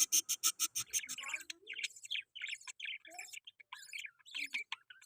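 Budgerigar chattering: a fast run of sharp repeated chirps, about nine a second, for the first second, then a string of short, varied chirps and warbles.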